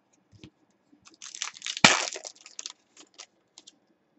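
Trading-card pack wrapper crinkling and crackling as it is torn open and handled, in a dense rustle about a second in with one sharp crack near the middle, with a few light clicks of cards around it.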